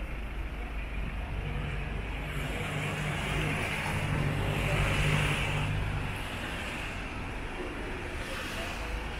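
City street traffic: a large vehicle's engine hum and wet-road tyre hiss swell as it passes, loudest about five seconds in, then fade back into the steady traffic noise.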